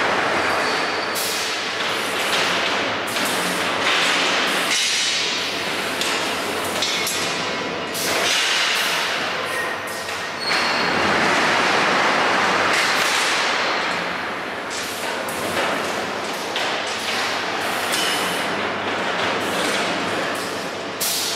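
Eurobend Syntheton multi-head rebar bending machine working through its bending cycles: repeated bursts of hiss lasting about a second each, with sharp metallic clanks and thuds as steel bars are bent and drop onto the outfeed table.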